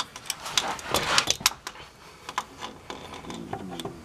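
Sharp metallic clicks and clinks of locking pliers (vise grips) being clamped and worked against the transfer case shift linkage, pressing a rubber bushing into place. The clicks come thick and fast about a second in, then scattered.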